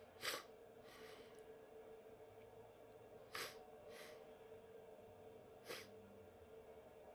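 Faint ice-rink ambience: a steady hum, with about five short scraping clacks from play on the ice, the loudest about a quarter second in.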